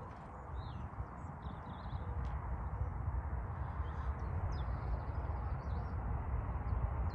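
Small birds chirping over a low rumble that grows gradually louder.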